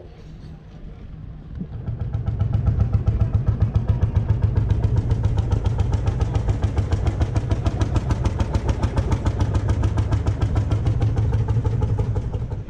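Lanz Bulldog tractor's single-cylinder two-stroke hot-bulb engine running under way with a loud, rapid, even pounding beat, coming in about two seconds in.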